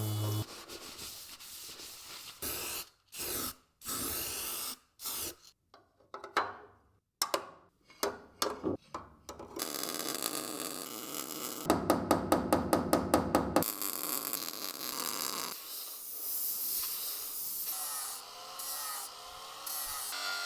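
Metalworking on a car body: a run of short rasping bursts broken by pauses, then steadier rasping noise. In the middle comes a rapid rattle of about five strokes a second for a couple of seconds.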